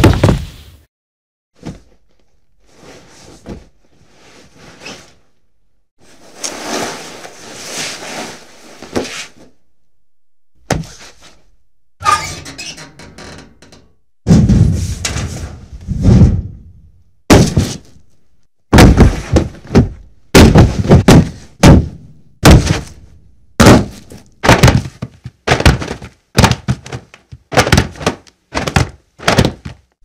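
Fight sound effects: punch and hit impacts, sharp thuds. A few softer noisy swishes come in the first half, then a rapid run of hits follows, about one and a half a second.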